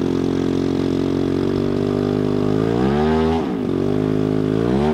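Radio-controlled model aircraft's engine running in flight, a steady drone whose pitch swells up and falls back about three seconds in, then rises again near the end.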